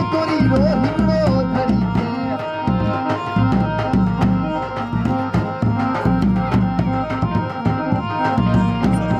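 Live folk music led by a dhol, a large barrel drum beaten with a stick, in fast, dense strokes, with a melody line held over the beat.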